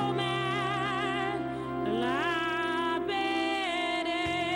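Gospel song: a voice holds long notes with vibrato and glides up about two seconds in, over sustained chords and a held bass note.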